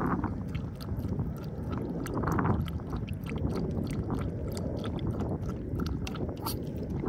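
Toy chihuahua lapping water from the plastic trough of a portable dog water bottle: quick, irregular wet licking clicks.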